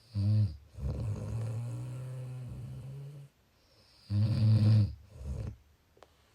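A person snoring: two loud, short snores about four seconds apart. The first runs on into a quieter, steady low hum lasting a couple of seconds.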